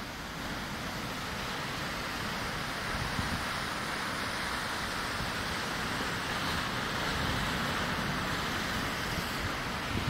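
Rough sea surf washing and foaming against the rocks at the foot of a cliff: a steady rushing noise that swells slightly now and then.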